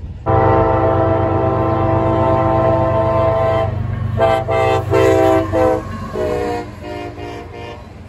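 Diesel locomotive's multi-chime air horn sounding: one long blast of about three and a half seconds, then a run of shorter blasts, the last few at a slightly lower pitch.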